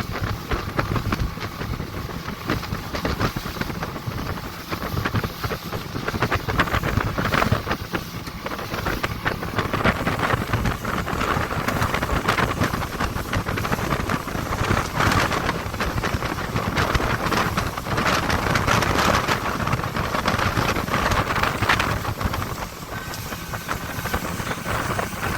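Small motorboat's engine running steadily under way, with wind buffeting the microphone.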